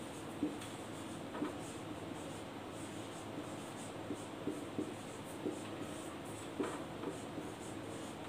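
Marker writing on a whiteboard: irregular short strokes and taps as letters are written one after another.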